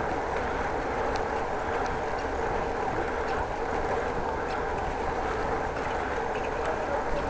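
Steady rushing noise of a bicycle ridden at speed: tyres rolling on the path and air rushing past a chest-mounted action camera, with a few faint ticks.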